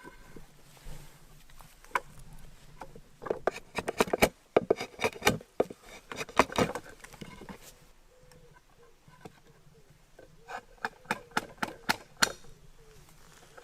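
Hand woodworking on the table's wooden parts: rapid wooden knocks and scrapes in two bursts, one a few seconds in and a shorter one near the end.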